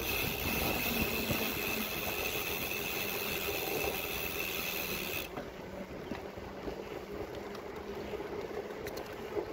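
Riding noise from a bicycle rolling over paving stones: a steady rush of wind and rolling noise with light rattles. For about the first five seconds a steady high whine with hiss sounds over it, then cuts off suddenly.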